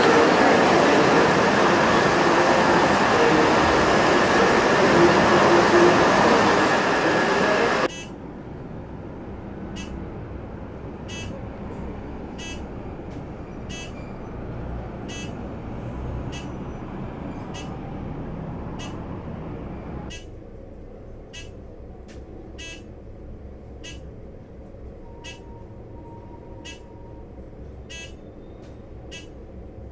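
City street traffic noise cuts off suddenly about eight seconds in. It gives way to a quieter hum with sharp, regular ticks about once or twice a second. From about twenty seconds in, a lower hum goes on with the ticks: an elevator cab rising.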